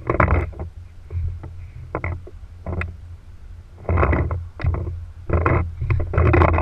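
Wind buffeting a GoPro's microphone: a steady low rumble broken by louder gusts every second or so.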